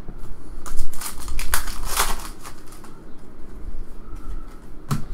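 Foil wrapper of a trading-card pack crinkling and tearing open, a run of sharp crackles about a second in, loudest near two seconds, then quieter handling of the cards.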